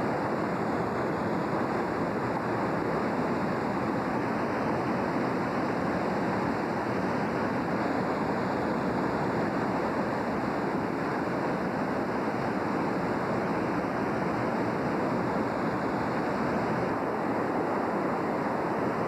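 The North Fork Wilson River in flood, rushing water making a steady, even noise.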